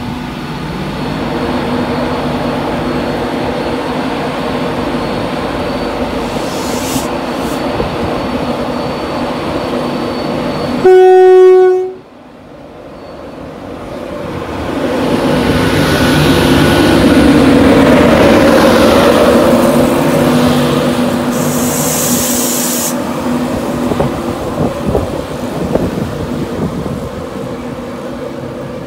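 Class 91 electric locomotive standing with a steady electrical hum from its equipment, then one loud horn blast of about a second. The locomotive and its coaches then pull away, the running noise rising to a peak and slowly fading, with a short high hiss partway through.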